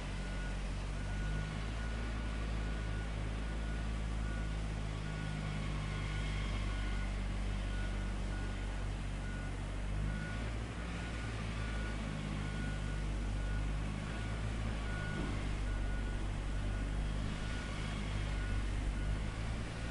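Diesel engine of heavy earthmoving equipment running steadily, with a backup alarm beeping a single high tone about once a second.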